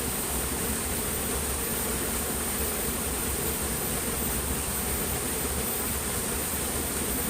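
Steady, unbroken high-pitched drone of insects over an even hiss.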